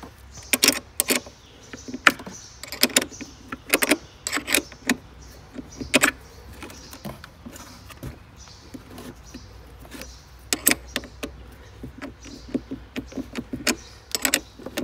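Small spanner clicking and clinking on a car battery terminal clamp as its nut is tightened, in irregular sharp clicks with short gaps between.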